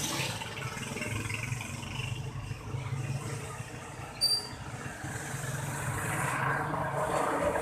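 Motor vehicle noise, an uneven low rumble that swells toward the end, with a short high beep about four seconds in.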